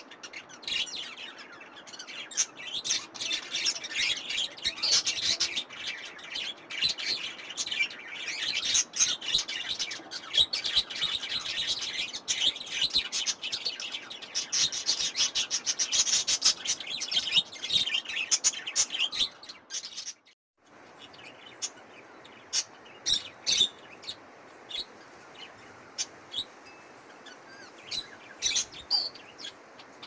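Small pet parrots in an aviary, budgerigars and a cockatiel, chattering and chirping as a dense, overlapping chorus. It cuts off abruptly about two-thirds of the way through, after which there are only scattered single chirps.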